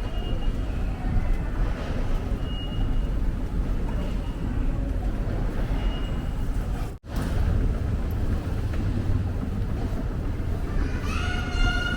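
Subway train running with a steady low rumble. Near the end comes a rising electric motor whine.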